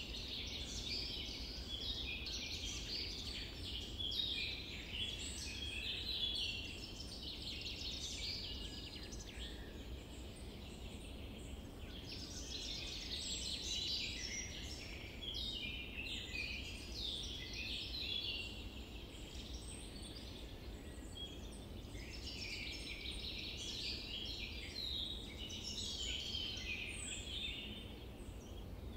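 Birds chirping and singing, many calls overlapping, in three long bouts with short lulls between them, over a steady low background rumble.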